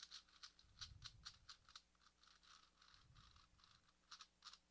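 ShengShou 4x4 speed cube being turned quickly by hand: a fast run of faint plastic clicks, about four to five a second, as the layers snap round. The cube is tightened as far as it will go.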